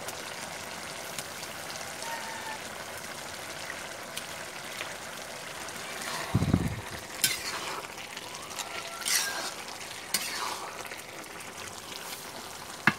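A curry of taro stalks and fish heads simmering with a steady bubbling hiss in an iron karahi over a wood fire. A metal spatula stirs it, scraping and knocking against the pan a few times in the second half, once with a heavier thump.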